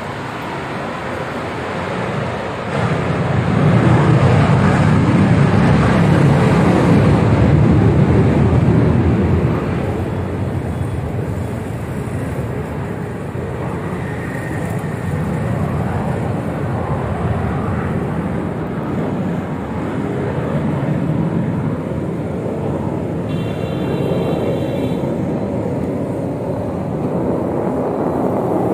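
Jet aircraft taking off, a deep engine rumble that swells about three seconds in and eases about ten seconds in, then carries on lower, mixed with passing road traffic. A short high-pitched beep sounds near the end.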